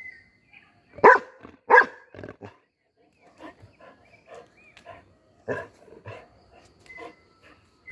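Golden retriever alert-barking at something it has noticed: two loud barks about a second in, then a run of quieter, irregular barks.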